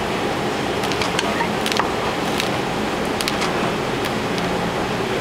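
Chef's knife chopping cold butter into small cubes on a plastic cutting board: a string of irregular sharp taps as the blade strikes the board, over a steady background hum.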